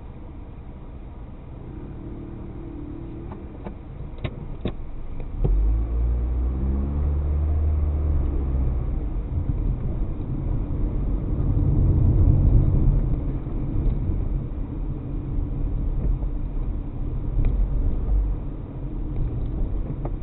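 Car engine and road noise heard from inside the car: quiet at first, then a much louder low rumble from about five seconds in, with the engine pitch rising as the car accelerates. Two sharp clicks come just before the rumble.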